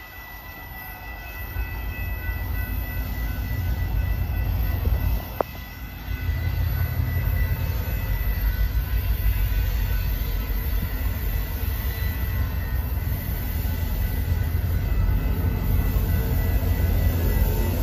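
BNSF diesel-electric locomotive approaching slowly with its train, a deep engine rumble that builds over the first few seconds and then holds steady. A brief dip and a single click come about five seconds in.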